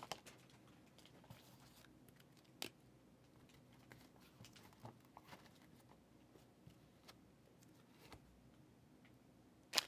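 Near silence broken by a few faint, scattered taps and clicks of a thick stack of trading cards being handled and squared up, with one sharper click at the very end.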